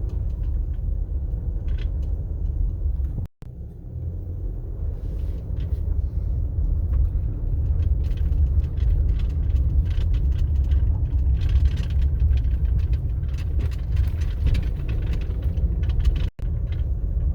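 Vehicle driving on a dirt road: a steady low rumble of engine and tyres with light rattling. The sound cuts out briefly twice, about three seconds in and near the end.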